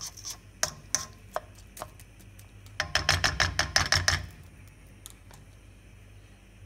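Plastic spatula stirring and knocking against a non-stick pan of rice and vegetables in water: scattered taps at first, then a quick run of strokes, about ten a second, for just over a second near the middle.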